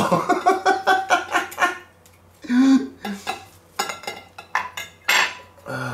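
Metal kitchen utensils and dishes clattering in a quick run of strikes as food is tipped onto a plate. After that comes a short low voiced grunt, then a few scattered clicks.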